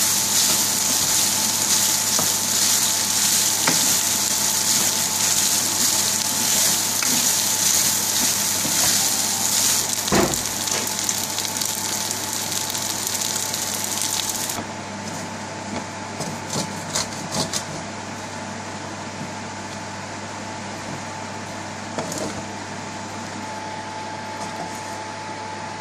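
Onion fried rice sizzling in hot oil in a frying pan as it is stirred with a wooden spoon; the sizzle cuts off abruptly about halfway through. After that a steady hum remains, with a few light clicks and scrapes of the wooden spoon in the pan.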